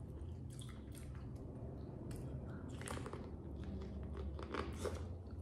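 A person eating close to the microphone: biting into corn on the cob and chewing, with scattered short crunches and wet clicks.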